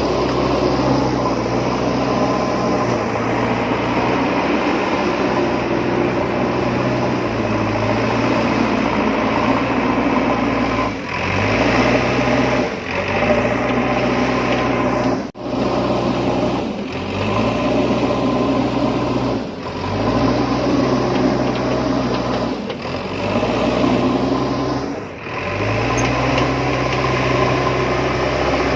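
Heavy diesel engine of construction machinery running steadily, briefly dipping and then picking up again several times, its pitch rising as it comes back under load.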